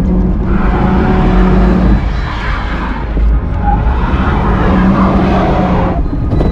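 Holden Adventra driving off-road: engine running steadily under tyre noise from loose ground, which swells about half a second in and drops away near the end.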